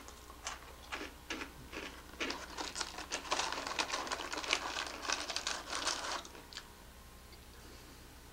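Crinkling and rustling of a Koala's March biscuit box and its plastic inner wrapper being handled: scattered crackles at first, thickening into rapid crinkling for a few seconds, then stopping about two seconds before the end.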